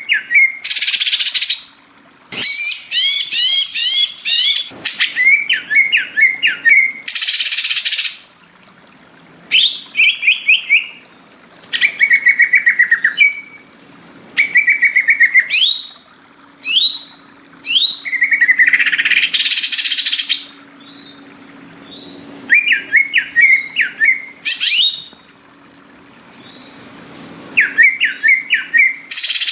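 Cucak ijo (green leafbird) singing vigorously: bouts of fast trills and quick slurred whistled notes separated by short pauses, with a few harsh, raspy bursts mixed in. A faint steady low hum runs underneath.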